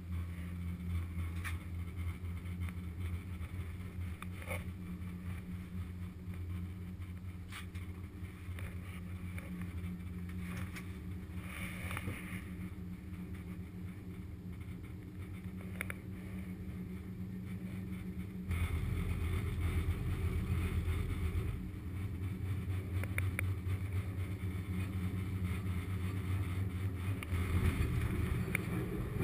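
Steady low hum and rumble of a POMA gondola cabin riding the cable, with a few faint clicks. It grows louder about two-thirds of the way through and rumbles more near the end as the cabin pulls into the terminal.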